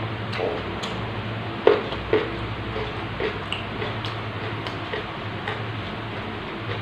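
A person chewing crunchy raw vegetables with the mouth close to the microphone: irregular crisp crunches and wet smacks, the loudest about a second and a half in.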